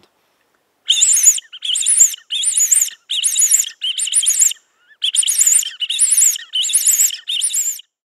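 Clausen Predatorcall 3, a mouth-blown bird distress call, sounded as a string of shrill, wavering squeals about half a second each: five, a short pause, then four more. It imitates a small injured bird crying in distress, to lure foxes.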